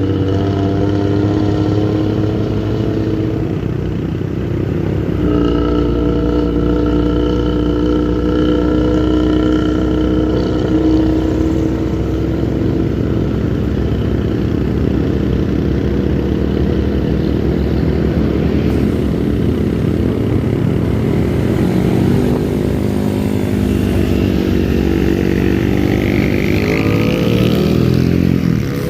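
Intercity bus engine with a loud modified 'ngorok' (snoring) exhaust, pulling hard along the road. The engine note dips about four seconds in, holds steady for a long stretch, then climbs in pitch as the bus accelerates near the end.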